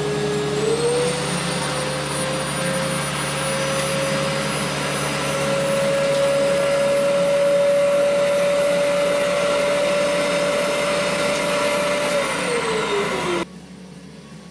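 Vacuum motor of a vacuum press running as it sucks the plastic bag down over a curved plywood form. Its steady whine rises slightly in pitch about a second in, then sinks as the motor winds down, and the sound stops about a second before the end.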